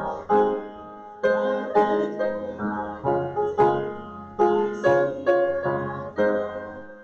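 Instrumental hymn music on plucked strings: chords are struck one after another and left to ring and fade.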